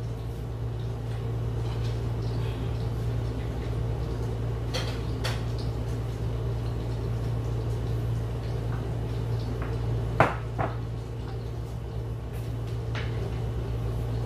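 Kitchen handling sounds: a few light knocks and clinks of bowls and utensils being moved on the counter, the sharpest one about ten seconds in, over a steady low hum.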